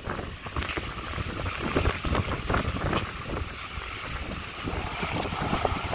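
Strong wind buffeting the microphone in gusts, over rough sea water sloshing and splashing as waves wash over a swamped boat's upturned hull.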